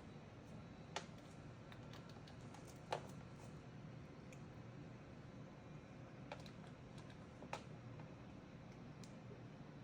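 Scattered light clicks and taps, four of them sharper than the rest, over a faint steady low hum.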